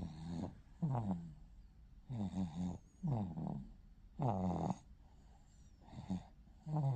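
Snoring with a whining, pitched tone that falls on each breath: about seven snores roughly a second apart, some in quick pairs. It is unusual enough that the owner wonders whether it really is snoring.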